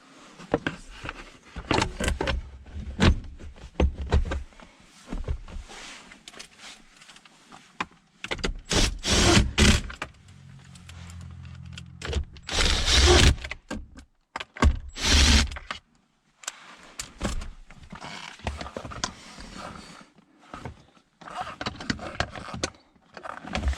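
Clatter of tools and parts while the shifter and its boot are being reassembled: irregular knocks, rattles and clicks, with a few louder scraping bursts and a brief low hum near the middle.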